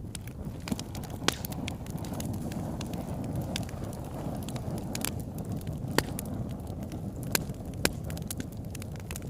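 Campfire burning, a steady low roar of flames with irregular sharp pops and crackles of burning wood, a few louder snaps standing out.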